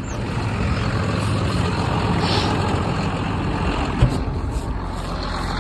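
John Deere 7720 tractor's six-cylinder diesel engine running steadily, with a single sharp click about four seconds in.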